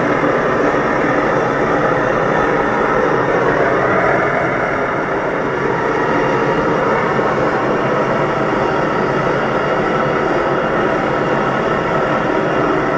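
Brass pressurized blowtorch burning, its flame jet giving a loud, steady, continuous rushing noise.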